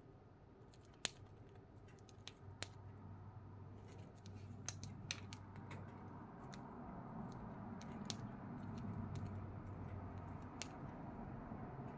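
Cockatiel eating, its beak cracking and nibbling food: scattered sharp clicks at irregular intervals, roughly one a second, over a faint low hum.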